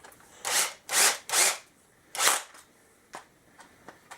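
Makita 18-volt cordless drill in screw mode, driving a screw in four short trigger bursts, followed by a few light clicks. The driver bit is too small for the screw.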